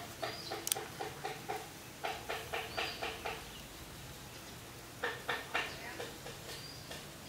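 Fowl calling in rapid runs of short notes, about five a second: three runs with brief pauses between them, the last starting about five seconds in.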